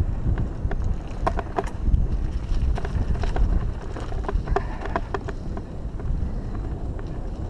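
Mountain bike rolling along a dirt singletrack, heard from a handlebar camera: a steady wind rumble on the microphone with scattered clicks and rattles from the tyres and bike over the rough ground.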